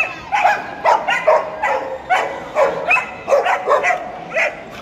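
A dog barking in a quick, steady run of short, sharp barks, about three a second.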